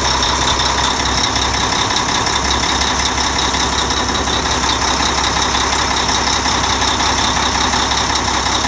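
Fire truck engine idling steadily, with a steady high whine over it.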